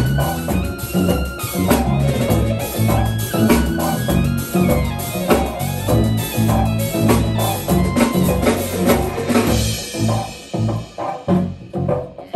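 Live jazz trio playing: drum kit, electric bass and keyboards together in a steady groove. Near the end the music thins out into short, separate hits.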